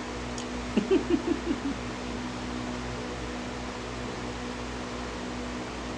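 Steady indoor hum with a constant low tone, like a running fan. About a second in, a brief hummed murmur from the man, mouth full, as he eats.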